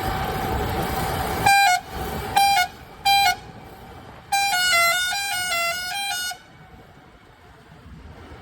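Vehicle's musical horn: three short toots, then about two seconds of a tune stepping up and down between notes. Before it, a steady vehicle running noise with a held tone.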